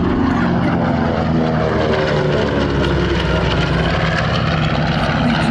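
Piston-engined propeller warbirds, among them the PBJ/B-25 medium bomber, flying past low on a photo pass. The engine drone is loud and steady and drops in pitch about halfway through as the aircraft go by.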